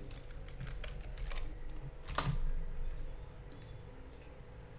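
Computer keyboard and mouse clicks while a value is typed in and a keyframe is inserted: a few light taps, one sharper click about two seconds in, then a couple of faint clicks near the end.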